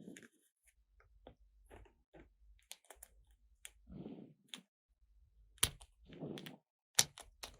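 Small plastic toy pieces being handled and set down: scattered light clicks and taps, with a soft rubbing sound about four seconds in and again about six seconds in. Two sharper clicks stand out, one near the middle and one near the end.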